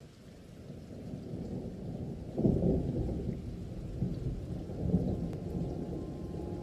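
Thunder rumbling, fading in, with louder rolls about two and a half and five seconds in.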